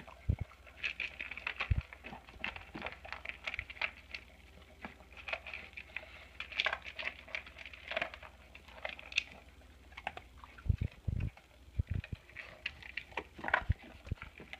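A dog eating dry food fast from a bowl: a quick, busy run of crunching and small clicks, with a few low knocks.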